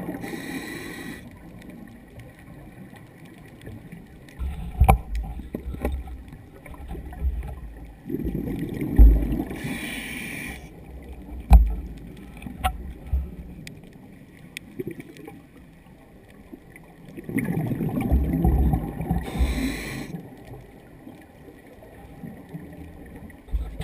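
Scuba diver's breathing through a regulator, heard underwater: about every nine seconds a hiss of inhaling and a rumbling, gurgling rush of exhaled bubbles, three breaths in all. Between the first two breaths come low knocks and scattered sharp clicks.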